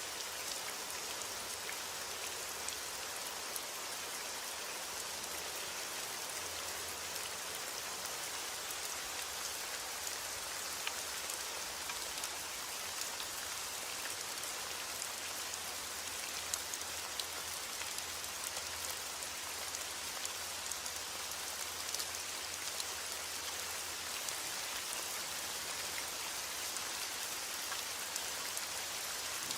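Steady heavy rain falling as an even hiss, with single drops pattering sharply here and there.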